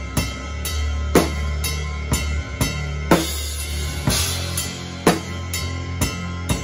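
Gretsch drum kit played in a slow, heavy stoner/doom metal groove, with hits about twice a second over a sustained low tone. A cymbal crash rings out about four seconds in.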